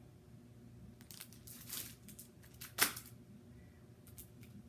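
Crinkling and rustling of packaged craft material sheets being handled, a run of short irregular rustles with one sharper crinkle a little past the middle.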